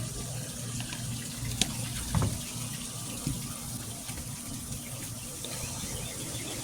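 Steady background hiss with a low hum, broken by a few faint clicks.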